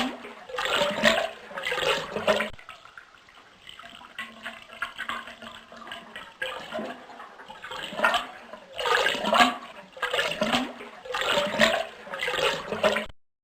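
Toilet flushing: water rushes through the bowl in loud, repeated surges, eases to a quieter run for a few seconds, then surges loudly again before cutting off suddenly near the end.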